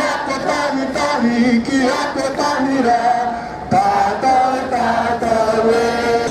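A crowd of protesters singing together, many voices holding long notes of a slow melody, with a short lull about three and a half seconds in.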